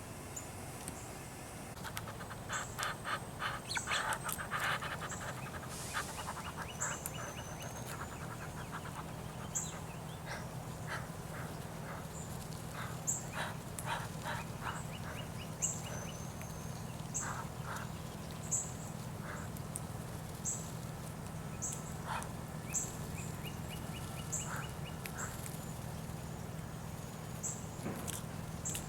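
Small birds at a feeder chirping: repeated high short chips every second or so, and bursts of rapid chattering notes, busiest a few seconds in. A steady low hum runs underneath.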